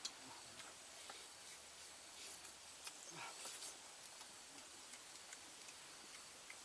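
Faint chewing and lip-smacking of a person eating roasted turkey: scattered small wet clicks over a steady background hiss.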